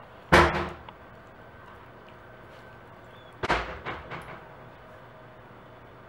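A German Shepherd Husky mix makes two loud, sudden sounds about three seconds apart. The second is followed by a couple of smaller ones.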